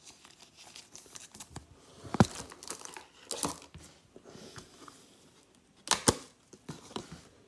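Baseball cards and a plastic card sleeve being handled: light rustling and crinkling, with two sharper clicks, one about two seconds in and one near six seconds.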